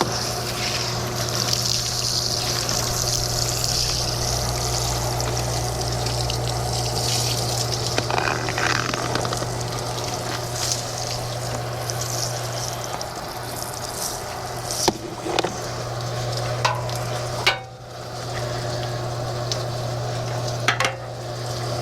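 A steady engine hum under a constant hiss, with a few sharp knocks in the second half and a brief dropout about three quarters of the way through.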